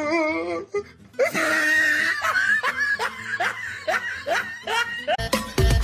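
A person laughing, a string of short falling "ha" sounds, over quiet background music; louder, rhythmic music comes in near the end.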